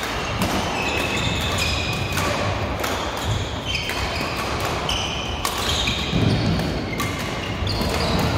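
Badminton play across several courts: sharp racket strikes on shuttlecocks at irregular intervals, mixed with short high squeaks of shoes on the court mats, in a reverberant sports hall.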